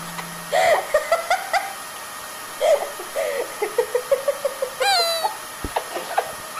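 Siberian husky whining and yowling in a string of short, wavering calls, with a higher, longer call about five seconds in.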